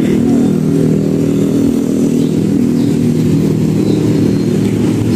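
A motorcycle engine running steadily, a continuous, even drone.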